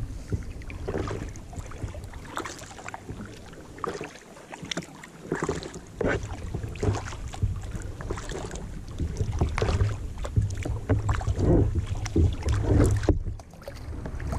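Kayak paddle blades dipping and splashing in the water, stroke after stroke, with wind rumbling on the microphone.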